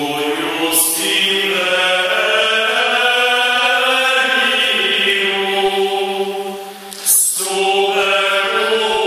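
Male vocal ensemble singing a cappella in harmony, holding long, sustained chords. About seven seconds in the voices briefly drop out on a sibilant consonant, then come back in.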